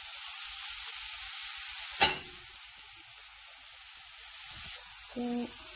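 Diced onion, potato and carrot sizzling steadily in oil in a stainless steel frying pan as ground spices go in. A single sharp knock comes about two seconds in.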